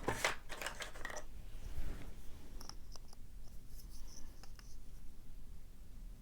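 Small metal clicks and scraping as a padlock core is worked with a tool to get it out. A dense run of clicks and scrapes comes in the first second, then lighter scattered ticks and brief scratches.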